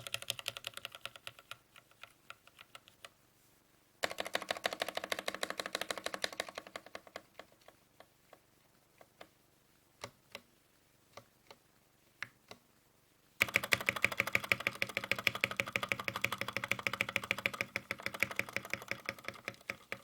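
Typing on a GK61 mechanical keyboard with Gateron Red linear switches and PBT keycaps. Fast runs of keystrokes start about 4 seconds in and again past 13 seconds, with slower scattered single key presses between them and near the end.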